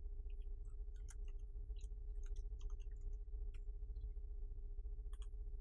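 Faint, irregular clicks of computer keyboard keys as login details are typed, over a steady low electrical hum.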